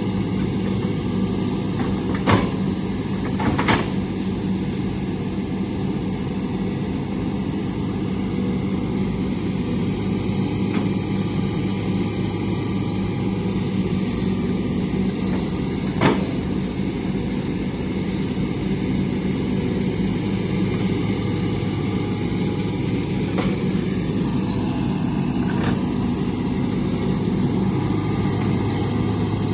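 Hitachi excavator's diesel engine running steadily at an even pitch, with a few sharp knocks, the loudest about 2, 4 and 16 seconds in.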